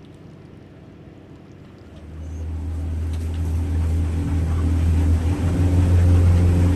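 Motorboat engine throttling up about two seconds in, then running steadily with a low drone that grows louder.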